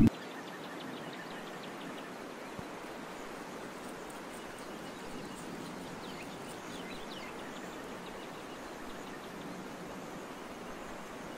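Outdoor woodland ambience: a steady, even hiss with faint, scattered bird chirps.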